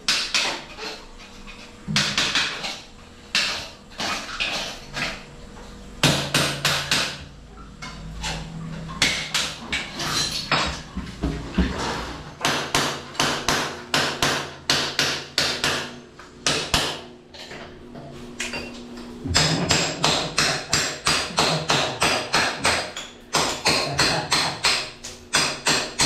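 Hammer blows on a building site, struck in quick runs of about three a second with short pauses between runs.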